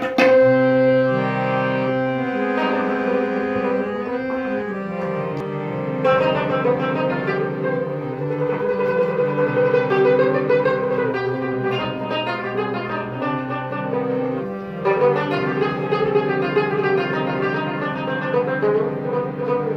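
Instrumental music: a harmonium holds steady sustained notes while a rubab picks a quick, trembling melody over it, getting busier about six seconds in and again near fifteen seconds. A couple of tabla strokes sound right at the start, then the drum stops.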